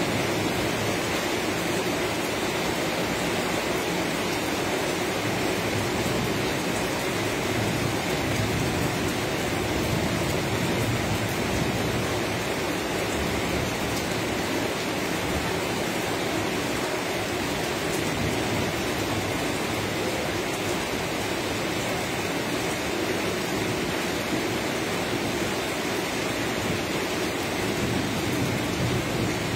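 Rain falling steadily: an even, unbroken noise.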